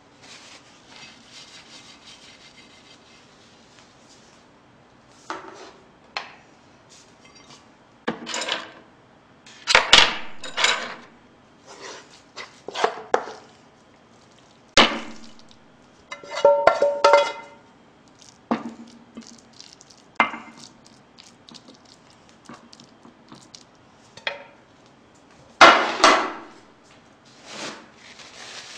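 A frying pan being scraped and knocked with a utensil as fried rice is served out of it onto a ceramic plate: irregular scrapes and clacks, with a few brief ringing clinks about halfway through.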